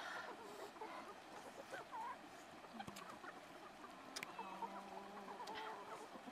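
Faint clucking of fowl: short pitched calls scattered through, one held a little longer near the end, with a few light clicks.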